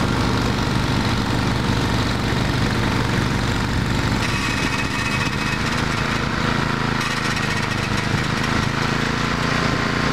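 Small gasoline engine of a snowblower running steadily at a constant speed.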